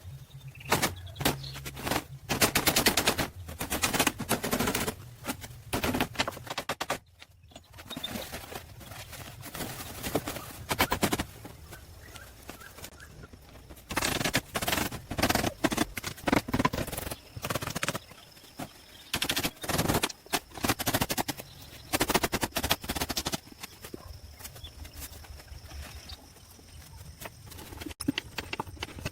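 Bursts of rapid, sharp knocks, many strikes a second, separated by quieter pauses of a second or more.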